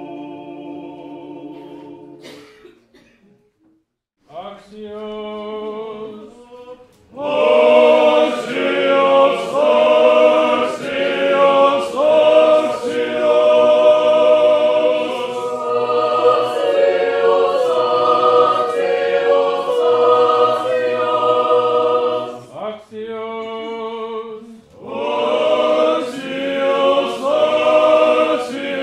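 Orthodox church choir singing a cappella in Russian-style chant. A held chord ends about two seconds in, and after a short pause a brief phrase is sung. The full choir then sings for about fifteen seconds, breaks for another short phrase, and comes back in near the end.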